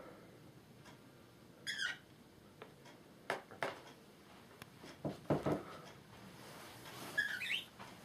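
Pet parrot chirps from a budgie and cockatiel: two short, wavering high calls, one near the start and one near the end. Between them are a few scattered soft knocks and taps.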